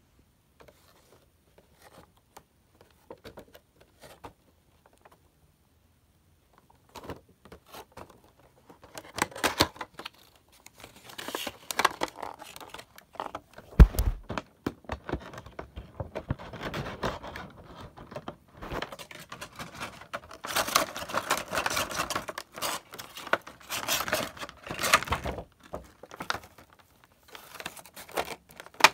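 Funko Pop packaging being handled: the cardboard box and its clear plastic insert tray crinkling and rustling. A few light taps at first, then continuous crinkling with one sharp thump about halfway through.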